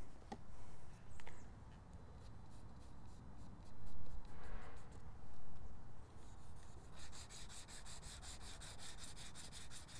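Charcoal stick scratching on drawing paper while shading. The strokes are scattered at first, then from about seven seconds in they come as quick, even hatching, several strokes a second.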